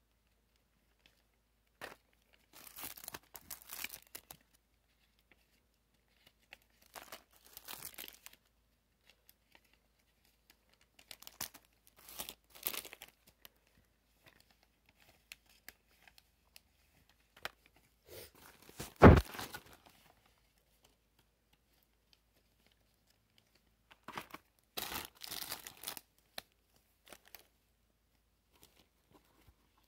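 Cellophane and plastic candy wrappers crinkling in five short bursts as they are handled. About two-thirds of the way through there is a single loud thump.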